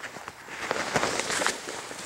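Rustling and crackling in dry leaf litter and twigs on a forest floor, with many small clicks, loudest through the middle second.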